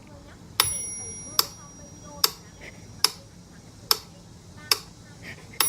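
A regular series of sharp clicks, about one every 0.8 seconds. Two of them, about half a second in and near the end, ring on briefly with a high, bell-like tone.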